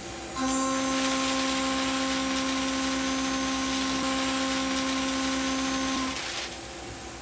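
An end mill in a CNC spindle side-milling 1050 carbon steel. A steady whining tone with a dense cutting hiss starts about half a second in as the cutter engages the steel. It holds evenly until about six seconds in, then drops back to the fainter hum of the spindle running without cutting.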